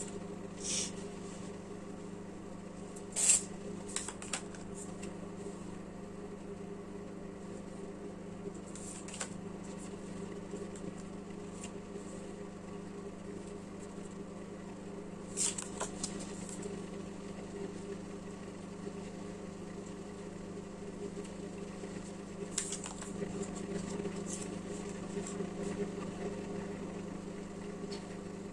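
Steady low hum with a few brief rustles and soft clicks of tarot cards being handled, the clearest about three seconds in and again around fifteen seconds.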